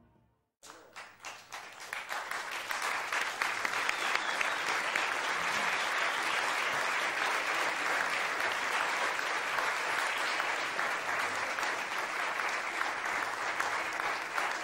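Concert audience applauding: a few scattered claps about half a second in, swelling within a couple of seconds into steady applause.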